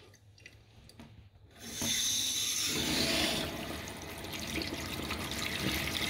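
Cold water running from a kitchen mixer tap into a stainless steel sink, turned on about a second and a half in: a steady rush, strongest for the first couple of seconds, then settling a little lower. The tap's newly fitted quarter-turn ceramic cartridge is working fine.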